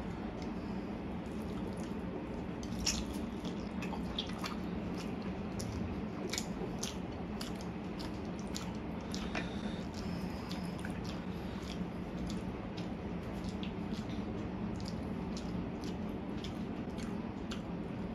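Close-miked eating of saucy stir-fried noodles and fried egg: wet chewing and squelching with many short mouth clicks and smacks, over a low steady hum.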